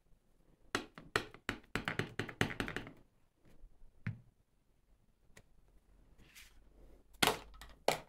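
Craft supplies being handled and set down on a tabletop. A quick run of taps and knocks starts about a second in, a single knock follows about four seconds in, and two sharp clicks come near the end.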